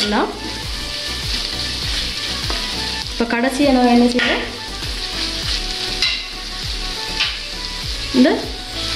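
Chicken and vegetables sizzling in a large metal kadai while a metal spoon stirs through them.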